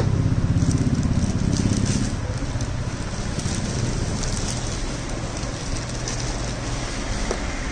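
A clear plastic bag crinkling and rustling as a touchscreen car stereo is handled and slid out of it. A low engine rumble is loudest for the first couple of seconds, then eases off.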